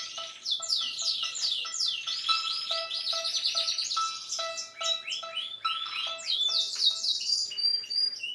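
Nokia 3220 ringtone playing: a rapid run of falling, birdsong-like chirps over a repeating pattern of short electronic beeps. It cuts off suddenly near the end.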